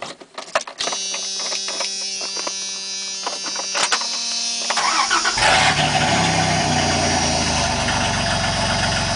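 Starter cranking the 1997 Dodge Ram 1500's 3.9-litre V6 for about four seconds, a steady whine with an even chug. The engine catches about five seconds in and runs on at a louder idle through a gutted-catalytic-converter, cut-off exhaust.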